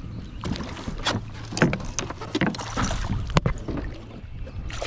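A hooked bass splashing and thrashing at the water's surface beside a kayak, with irregular sharp splashes and knocks, the loudest about a second and a half in and again past three seconds.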